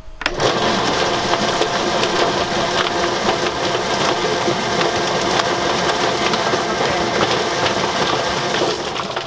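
Kitchener drum-style chicken plucker switched on, its electric motor spinning the rubber-fingered plate while a scalded chicken is held in the drum to strip its feathers. It starts suddenly just after the beginning, runs steadily and loud, and winds down near the end.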